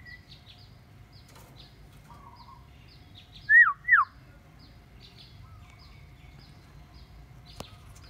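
Common hill myna giving two loud, short whistles about half a second apart, each sliding up and then dropping sharply in pitch.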